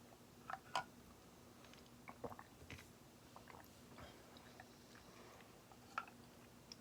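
Vintage NuTone 52-inch ceiling fan running on low: a faint steady motor hum with scattered, irregular light clicks and ticks. A slight bearing noise remains even after the seized bearing was oiled.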